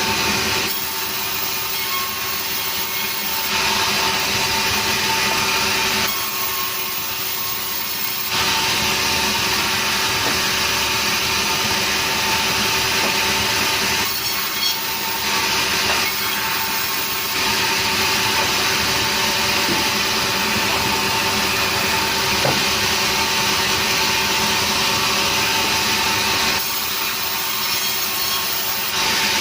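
Sawmill saw running steadily and cutting lengthwise through a log of nering wood, the cutting hiss easing off in a few short breaks and then picking up again.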